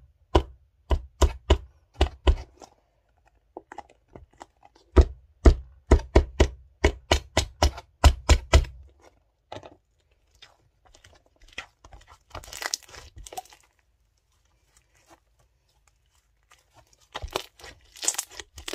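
Homemade slime squeezed and kneaded by hand: a quick run of sharp clicking pops with soft thumps for the first half, then sparser crackles and a couple of short rustles.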